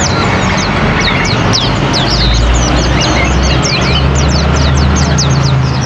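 Many small caged birds chirping, a steady patter of quick, thin, falling calls. Under them runs the low hum of an engine, which grows louder about two seconds in.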